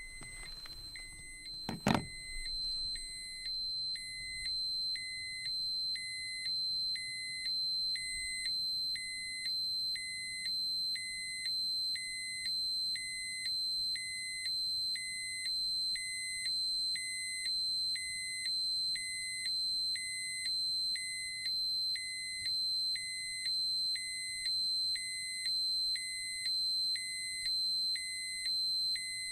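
Dosimeter alarm sounding: a steady high-pitched tone with a lower electronic beep repeating evenly, a little more than once a second. A sharp click about two seconds in is the loudest single sound.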